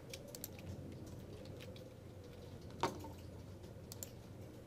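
A few faint computer keyboard keystrokes and mouse clicks, scattered single taps, with one sharper click a little before three seconds in.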